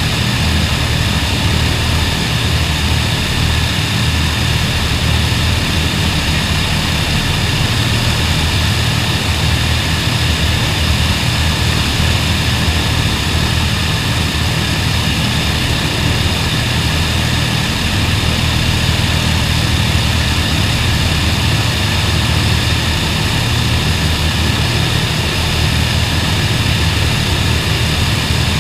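Avro Lancaster's four Merlin V12 engines running steadily together on the ground during an engine run, with no change in speed.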